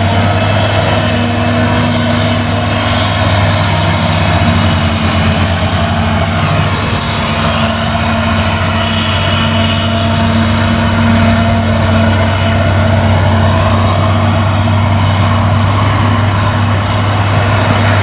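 Claas Jaguar self-propelled forage harvester running under load while chopping grass and blowing it into a trailer, together with the engine of the tractor pulling the trailer alongside: a loud, steady drone with a constant low hum.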